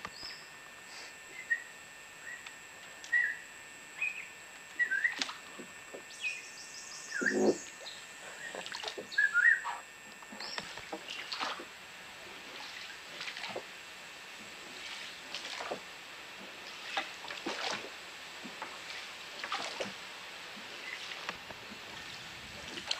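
Birds calling in the riverside forest: scattered short chirps and a quick high trill in the first ten seconds, with a single low thud about seven seconds in. In the second half, oars dip and pull through the water about every two seconds as the boat is rowed.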